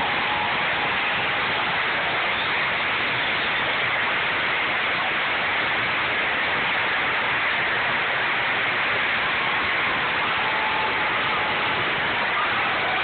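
Large arena crowd cheering, a steady dense wash of noise.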